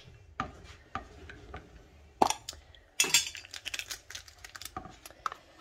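Kitchen utensils clinking and knocking as a spoon and a spice jar are handled: scattered sharp clicks, with one louder knock a little over two seconds in and a cluster of clatter around three seconds.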